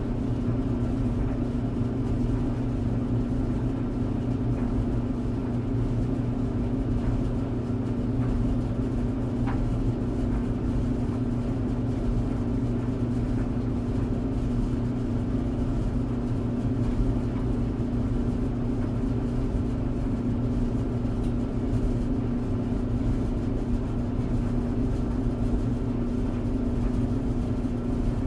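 Clothes tumble dryer running: a steady low hum with a rumble underneath, unchanging throughout.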